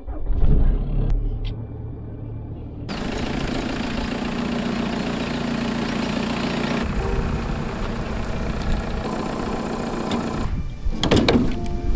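Volkswagen Golf Mk3 engine starting with a sudden low rumble, then running as the car drives, with a fuller, noisier sound from about three seconds in. A few sharp knocks near the end.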